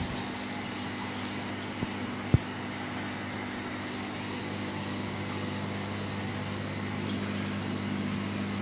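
Steady low hum and hiss of running reef-aquarium equipment, such as circulation pumps and filtration. A single sharp click about two seconds in.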